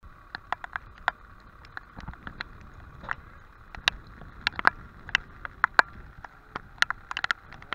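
Scattered sharp taps and clicks, irregular and sometimes in quick clusters, over a steady background hum.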